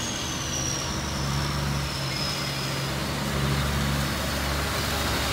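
Diesel engine of a semi truck pulling a box trailer, running steadily as it turns and approaches, with tyres hissing on the wet road. A faint high whine glides slowly down in pitch over the first few seconds.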